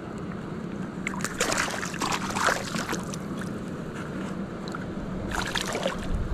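Water splashing and sloshing in two short spells, over a steady low hum.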